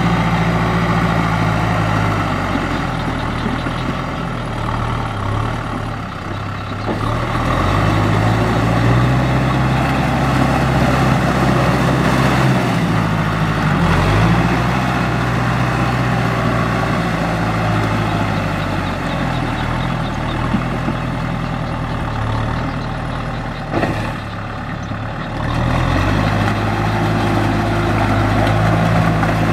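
Tractor engine running hard under load, its pitch rising and falling as it revs, with the sound changing abruptly a few times from one engine to another.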